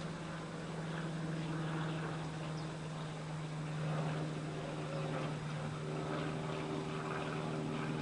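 A steady low machine hum, a second higher hum joining it a little past the middle, with a few faint bird chirps over it.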